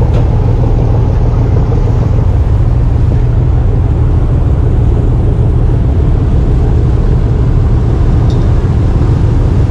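Passenger ferry's diesel engines running with a loud, steady low drone as the ferry gets under way from the pier.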